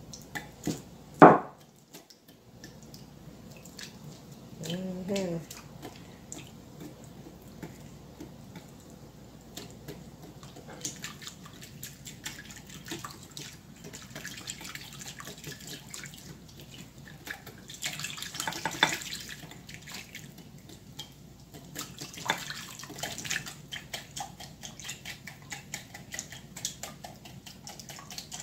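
Silicone whisk beating a thin starch-and-water slurry in a glass measuring cup: rapid ticking of the wires against the glass and liquid sloshing, in louder spells now and then. There is a sharp knock about a second in.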